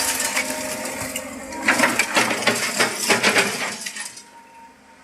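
Dense clattering and crunching of hard objects: a fast run of sharp clinks and knocks, densest about two to three and a half seconds in, that dies away near the end. Typical of an excavator at work, rock and metal knocking together.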